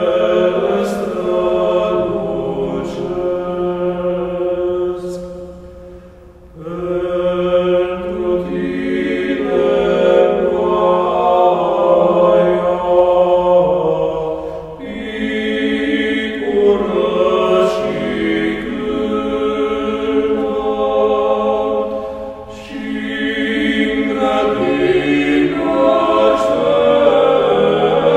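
A choir singing chant: several voices holding long chords in slow phrases, with brief breaks between them, the deepest about six and a half seconds in.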